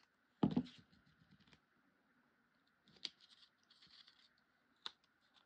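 Small scissors handled and snipping paper on a tabletop. There is a knock about half a second in, then light rustling and a few sharp clicks of the blades near three and five seconds.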